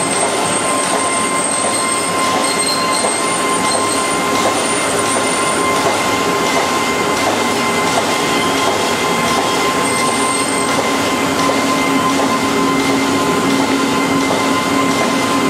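TM382D envelope film-sticking machine running steadily: an even, dense mechanical clatter with a steady high whine, and a lower hum that joins about two-thirds of the way through.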